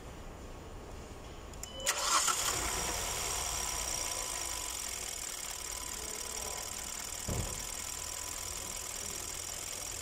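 Hyundai Sonata's gasoline direct-injection four-cylinder engine started about two seconds in. It catches quickly and settles into a steady idle that still misfires after the spark plug was changed; the fault is later traced to no compression in cylinder 4. A single low thump comes about seven seconds in.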